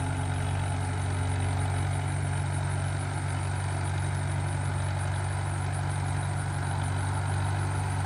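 1941 Farmall H tractor's four-cylinder engine running steadily as the tractor drives along, an even low hum with no change in pitch.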